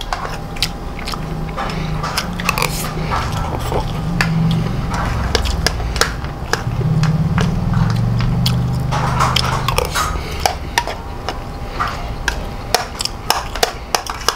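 Close-up chewing and mouth sounds of a person eating fried rice, with a metal spoon clinking and scraping on a ceramic plate many times. Two long, low hums in the throat come through while he eats, one early and one in the middle.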